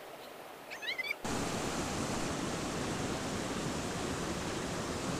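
A steady, even rushing noise sets in about a second in, after a brief quieter stretch with a few faint high chirps.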